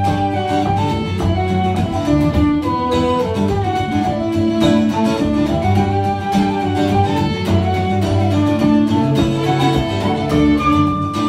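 Irish traditional tune played live on fiddle and a wooden flute in unison, over a rhythmic acoustic guitar accompaniment. The melody runs in quick ornamented notes, and a long high note is held near the end.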